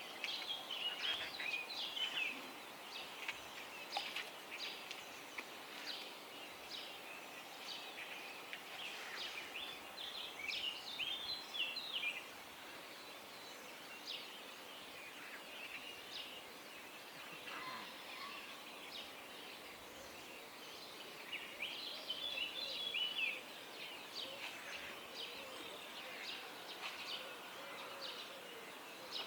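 Songbirds singing at dawn: many short chirps and quick twittering phrases from several birds, busiest near the start, around ten seconds in and around twenty-two seconds in, over a faint steady outdoor hiss.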